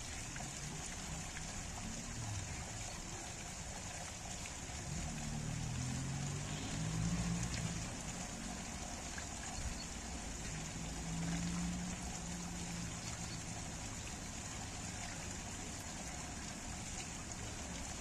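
Water pouring steadily from a spout in a stone wall, splashing onto rocks and trickling away along a stone channel. A low rumble swells faintly in the background around the middle.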